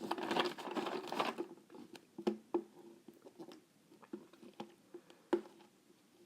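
Mouth noises made with a drink of horchata: a noisy burst lasting about a second and a half, then a handful of scattered short clicks.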